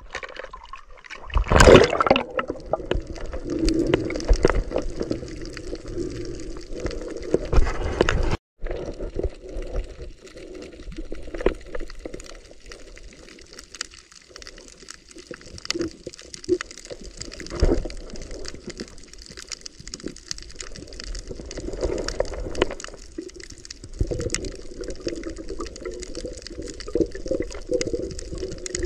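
Water sloshing and gurgling around a diver's camera as it moves at the surface and under water, swelling and fading irregularly.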